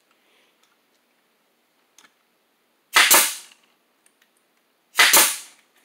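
Pneumatic nail gun firing twice, about two seconds apart. Each shot is a loud sharp crack that trails off over about half a second.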